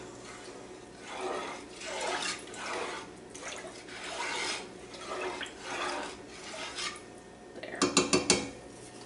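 Wooden spoon stirring brine in an enamel pot on the stove, the liquid swishing in strokes about once a second as the pickling salt and sugar dissolve. A short clatter of sharp knocks from the spoon against the pot comes near the end.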